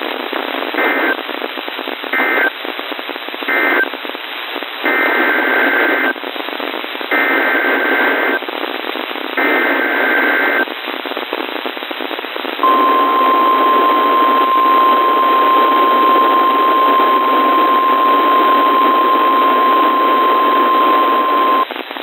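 NOAA Weather Radio alert received over a hissing radio channel. Three short bursts of warbling digital SAME data mark the end of the previous message, then three longer SAME header bursts follow. About twelve seconds in, the steady 1050 Hz warning alarm tone sounds for about nine seconds, announcing a severe thunderstorm warning.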